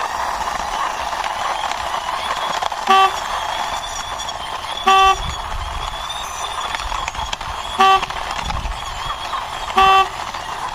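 Four short horn honks, each a second or two apart and louder than anything else, over a steady rushing noise as a toy motorbike is pushed along by hand.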